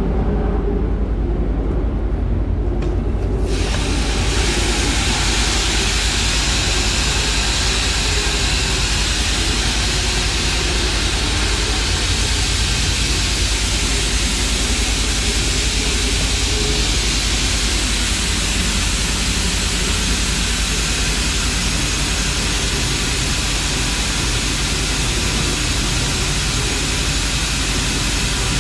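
Grain truck driving: a steady low engine drone with a loud, even hiss of wind and road noise that comes in about three and a half seconds in.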